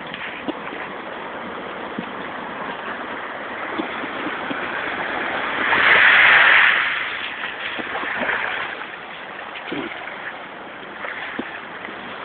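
Sea waves washing on the shore, with one louder surge of surf about halfway through.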